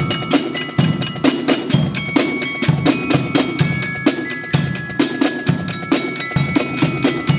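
Marching band percussion playing: snare drums rattling out a fast, even rhythm over regular deep bass-drum beats, with ringing glockenspiel notes carrying a tune above.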